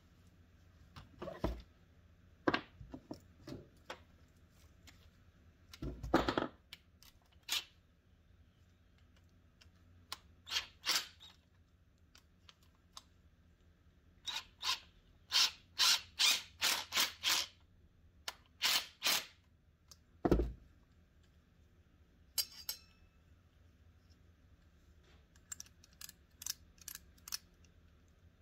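Small metal parts and hand tools clicking and clinking as the intake pipe is bolted onto a Tecumseh carburetor with a socket wrench. Scattered sharp clicks become a quick run of them about halfway through, with a couple of duller knocks.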